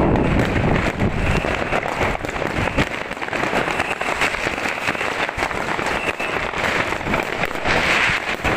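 Dense, continuous crackling and popping of many fireworks and firecrackers going off at once, with scattered louder bangs. A low booming dies down about a second in.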